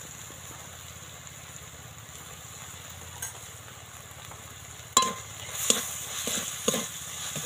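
Metal spatula knocking and scraping against a steel kadai as a vegetable filling with ground spices is stirred, starting about five seconds in with one sharp clank, then several quicker scrapes. Under it a faint steady sizzle of the filling frying in oil.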